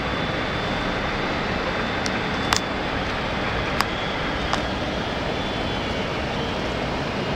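Steady rushing cabin noise inside a Boeing 767 cockpit in flight, the airflow and engine noise of the airliner descending, with a faint thin high whine. A few short sharp clicks stand out around the middle.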